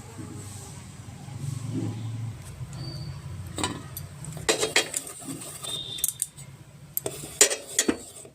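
Kitchen utensils clinking and knocking, a handful of sharp clatters that come more often in the second half, over a steady low hum.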